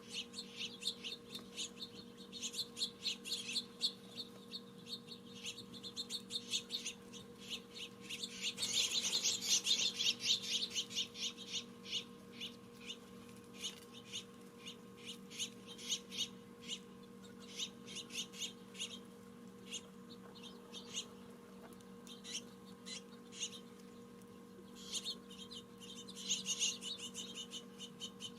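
Small songbirds chirping: many short chirps in quick runs, thickest about eight to eleven seconds in and again near the end, over a faint steady hum.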